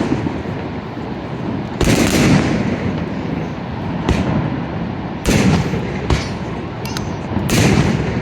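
Aerial fireworks bursting in a series of booms, each trailing off in a rumbling echo. The loudest come about two seconds in, about five seconds in and near the end, over a constant rushing background.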